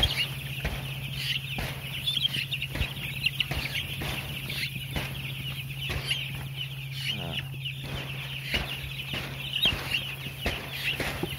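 A large flock of week-old broiler chicks peeping continuously, many high chirps overlapping, over a steady low hum.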